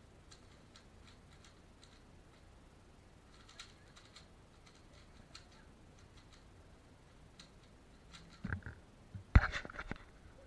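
Faint, rapid clicking of a Valk 3 Power M 3x3 speedcube being turned, then a few louder knocks and handling thumps near the end.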